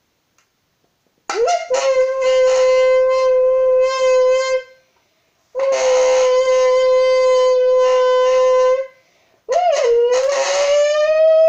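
Breath blown through a large folded and twisted drink can, making it buzz like a reed horn to imitate a car engine. Three long blows, each opening with a quick swoop in pitch and then holding one steady tone, the third climbing slowly in pitch like an engine revving.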